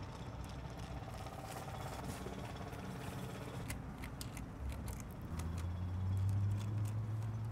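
Small metal clicks and ticks of a screwdriver working the screws that hold a laptop LCD panel in its frame, over a steady low hum. A louder low hum comes in about five seconds in and is the loudest sound near the end.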